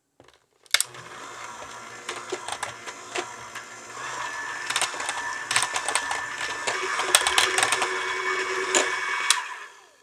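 Electric hand mixer running, its twin wire beaters whirring through cream cheese batter in a glass bowl as an egg is beaten in, with scattered sharp clicks. It starts under a second in, gets louder about four seconds in, and stops near the end.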